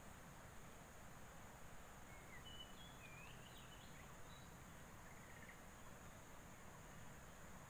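Near-silent outdoor ambience: a steady faint high-pitched insect drone, with a few faint short bird chirps around the middle.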